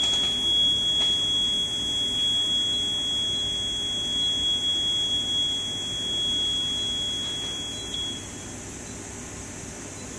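A single high-pitched electronic buzzer tone, held steady for about eight seconds and then cutting off: the alarm buzzer of an automatic flatbed screen printing machine.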